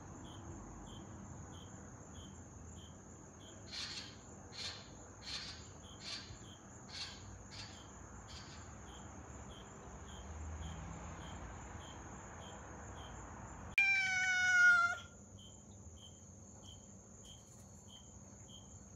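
Jamaican croaking lizard, a large gecko, calling a run of about seven dry clicking croaks, a little under one a second, each fainter than the last, over crickets chirping steadily. Midway a cat gives one loud meow of about a second, slightly falling in pitch.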